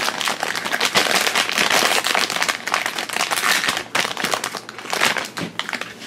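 Crinkling and crackling of a plastic blind bag being torn open and handled by hand, a dense, irregular run of crackles; the bag is tough to tear.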